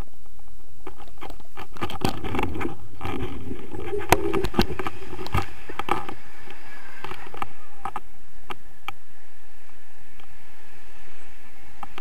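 Wind buffeting an action camera's microphone during a low tandem paraglider flight, a steady rumbling hiss. A run of sharp clicks and rustling comes from about one to six seconds in.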